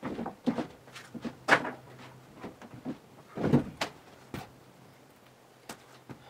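Irregular wooden knocks, creaks and thuds from footsteps and handling on old, weathered barn loft floorboards, the loudest thump about three and a half seconds in.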